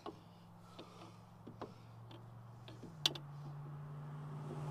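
Scattered metal clicks and taps from parts being handled at a Jeep Cherokee XJ's front axle knuckle and hub, with one sharper click about three seconds in. Under them a steady low drone grows louder toward the end.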